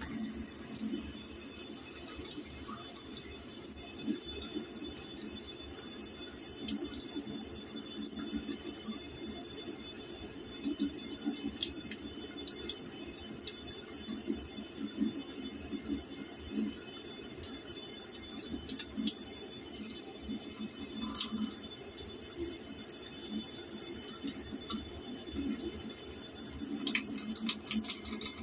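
Kitchen tap running steadily into a metal sink, splashing over hands rinsing raw chicken liver, with more splashing and wet handling near the end.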